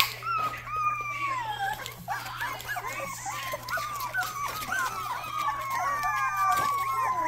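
Young Rottweiler puppies crying, several at once: a run of short whines and yelps with a few long calls that fall in pitch.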